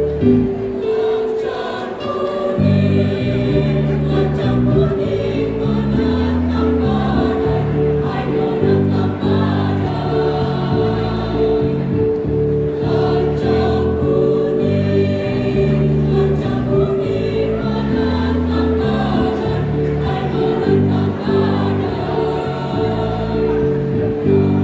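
A choir singing in parts with instrumental accompaniment, a bass line stepping under the voices.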